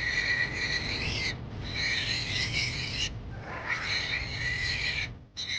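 A high-pitched animal sound, three long calls of about a second and a half each, over a low steady rumble.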